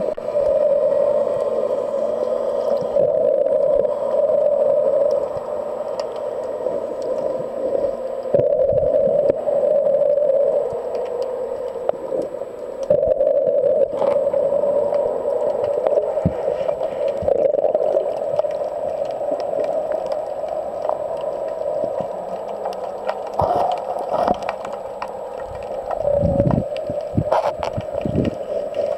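Muffled underwater sound picked up by a submerged camera: a steady hum with water noise, and a few low bumps near the end.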